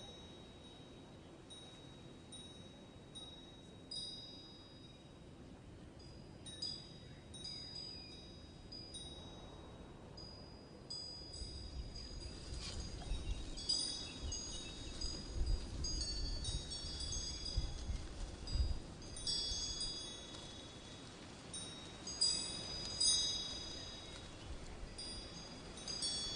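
Wind chimes tinkling in irregular clusters of high ringing notes, with a low rumble rising in the middle and fading away again.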